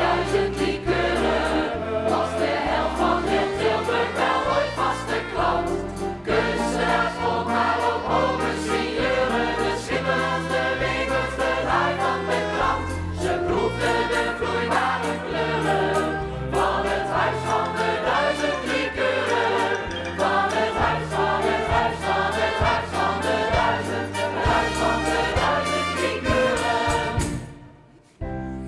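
Stage musical number: a band with a pulsing bass line and a regular beat, with an ensemble chorus singing over it. The music drops away sharply about a second before the end, then starts again.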